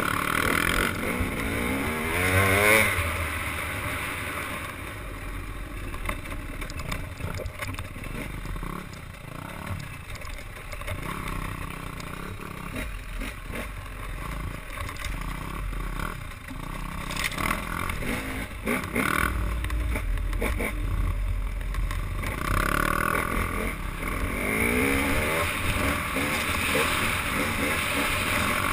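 A motorboat engine running and changing pitch, over a steady wash of wind and water noise.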